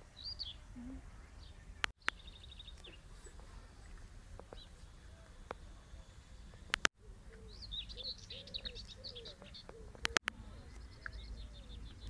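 Small birds singing in scrub: several short, high, rapidly repeated trills and chirps, over a steady low rumble of wind. Three sharp clicks with brief cut-outs of the sound, about two, seven and ten seconds in, are the loudest events.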